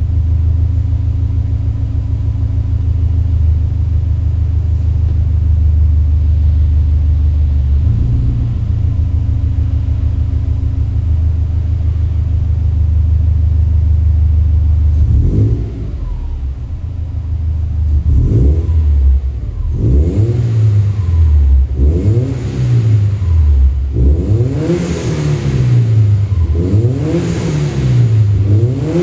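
Subaru Legacy 2.0GT (BP5) turbocharged EJ20 flat-four, breathing through an aftermarket FGK / Fujitsubo Super R exhaust. It idles steadily at first, with one short blip. From about halfway it is free-revved again and again, each rev rising and falling in pitch, one every second or two.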